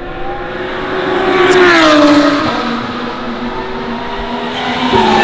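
A race car's engine at high revs passes by, its pitch dropping about two seconds in as it goes past. A second car comes up loud near the end.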